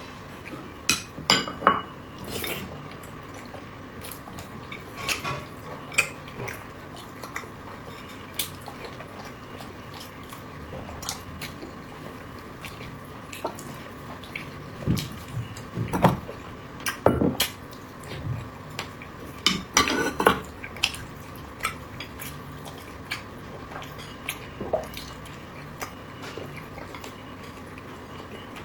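Eating utensils clinking and tapping against bowls and plates at an uneven pace, with a few soft low thumps among the clicks.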